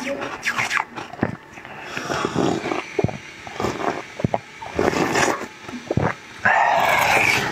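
Close-miked eating sounds: a soft bun being bitten and chewed, with wet mouth noises, lip smacks and many short sucking clicks. Near the end a louder, denser noise comes in and holds.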